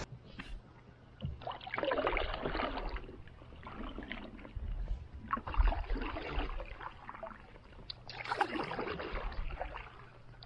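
Stand-up paddle strokes in river water: the blade dips and pulls through with a swishing splash, a few strokes a couple of seconds apart.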